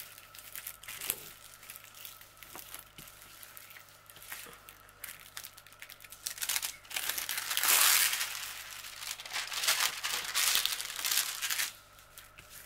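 The clear plastic film on a diamond painting canvas crinkling and rustling as hands press and smooth the rolled canvas flat. It comes in uneven bouts, louder in two stretches in the second half, and dies down shortly before the end.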